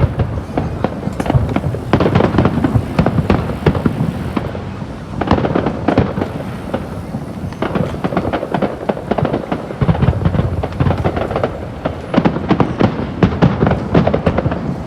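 Fireworks going off in a rapid, unbroken run of bangs and crackles, with deeper booms mixed in.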